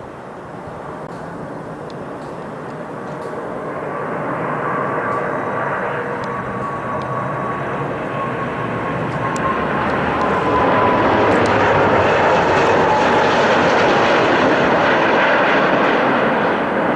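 Four-engine Airbus A340 airliner on landing approach: a jet engine roar that grows steadily louder as the aircraft nears, with a high engine whine slowly falling in pitch as it passes.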